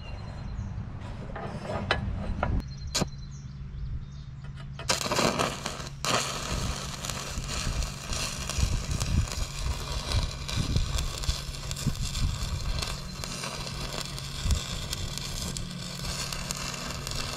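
Stick welder's arc crackling and sizzling steadily as a bead is run on the handle joint of a cast iron skillet, at about 80 to 85 amps. The arc strikes about five seconds in, after a few clinks and knocks.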